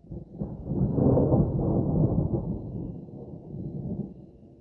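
Thunder rolling: a long, low rumble that starts suddenly, builds for about a second, then slowly dies away, with a second swell near the end.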